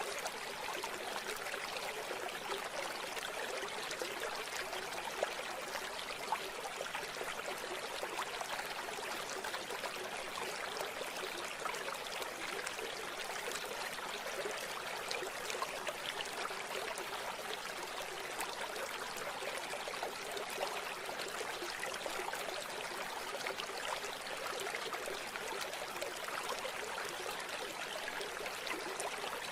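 River water running and trickling: a steady, even rush with small splashes.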